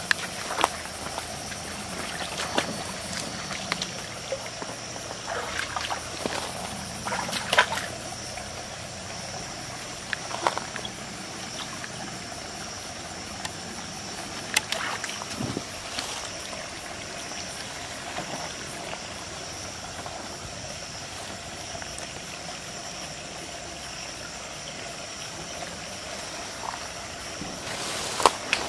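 Shallow rocky stream trickling, with scattered splashes and knocks as a person wades and works with their hands in the water and then clambers over the boulders. A steady high-pitched drone runs underneath.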